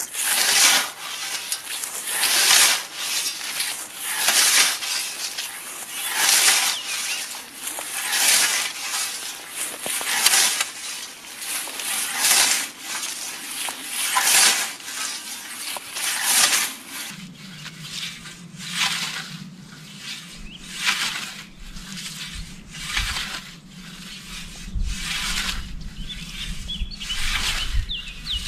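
Scythe blade swishing through short grass in steady mowing strokes, about one every two seconds. About 17 seconds in the strokes become fainter and come about once a second, over a steady low hum.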